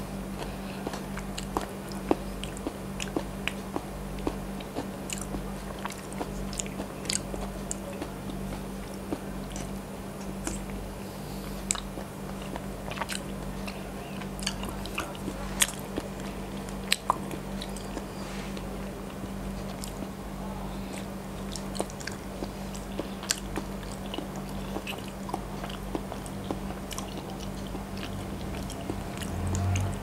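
Close-miked mouth sounds of a person chewing soft, sticky Thai coconut-milk desserts: many scattered wet clicks and smacks. A steady low hum runs underneath.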